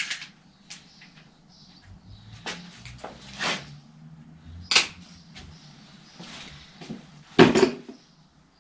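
Workshop handling noise: scattered clicks and knocks of hands and tools working on a bicycle in a repair stand, with a heavier knock about seven and a half seconds in.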